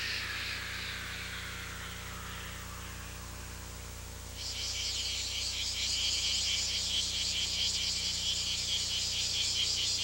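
Insect trilling, a rapid pulsing high chirr that starts suddenly about four seconds in, after a soft hiss that falls in pitch and fades. A low steady hum lies underneath.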